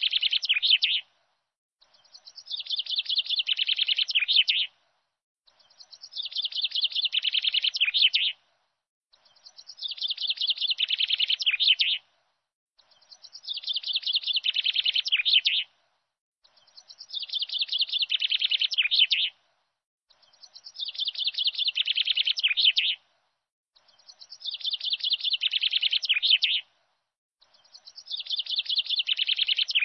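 A looped recording of bird song. The same phrase of quick, high chirps, about three seconds long and dropping a little in pitch near its end, repeats about every four seconds with short clean gaps between.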